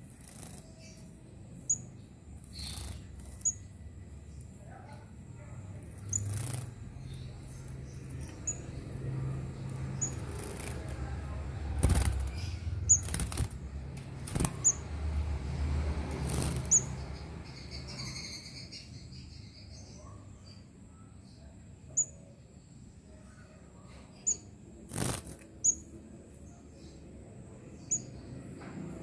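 A young sunbird bathing, with bursts of wing fluttering and splashing and repeated brief, thin high chirps.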